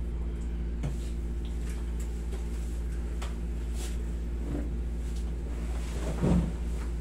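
Steady hum of a window-type air conditioner, with a few faint clicks and a brief low sound about six seconds in.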